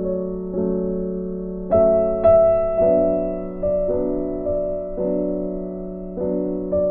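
Background piano music: soft sustained chords struck about once a second and left to fade, with a brighter higher note near the two-second mark.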